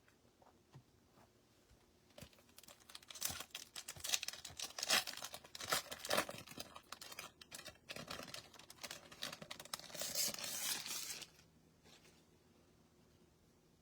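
A foil trading-card pack wrapper being torn open and crinkled by hand, in a run of crackly rustling that lasts about nine seconds and stops abruptly.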